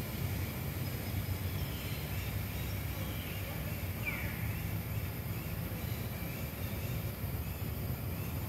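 Outdoor ambience: a steady low rumble with faint bird chirps, and one short high call falling in pitch about four seconds in.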